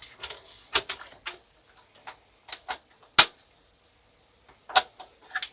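Irregular light clicks and taps of a small PC case being handled, its plastic and metal panels knocking and clicking, with a few sharper clicks about a second in, at about three seconds and near the end.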